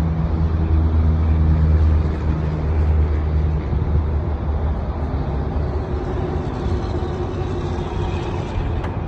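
A truck engine idling: a steady low hum that weakens after about four seconds, over a constant background rush.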